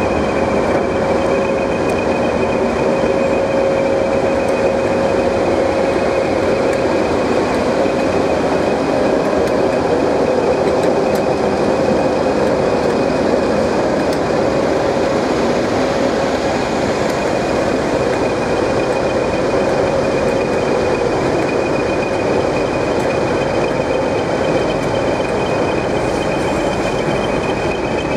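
English Electric Class 20 diesel locomotives running close by in a yard as one moves slowly past: a steady engine drone with a constant high whine over it.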